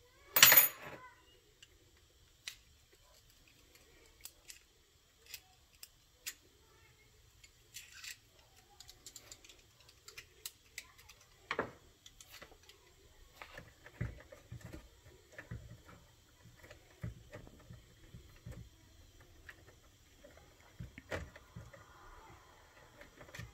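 Small screws, a screwdriver and plastic parts of an RC truck being handled, giving light, irregular clicks and taps. A sharp click about half a second in is the loudest.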